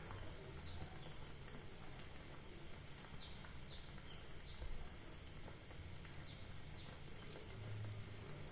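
Gas burner running under an aluminium moka pot whose coffee has already risen into the top chamber: a steady low rumble, with faint short high chirps now and then.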